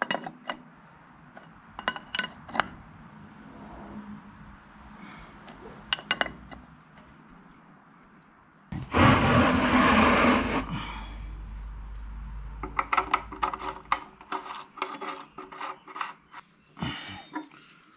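Hand tools working on the metal of a 1936 Farmall F-12 tractor: scattered metallic clicks and scrapes as a wrench turns the canister oil filter, a loud rushing noise lasting about two seconds near the middle, then a quick run of clicks as work moves to the oil pan.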